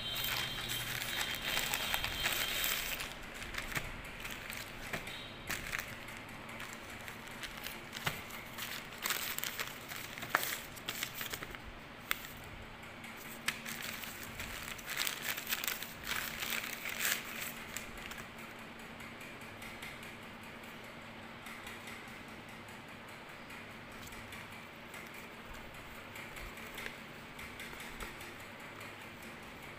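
Plastic courier mailer and packaging rustling and crinkling as it is opened and handled, with sharp crackles. The crinkling is busiest over roughly the first two-thirds and turns fainter near the end.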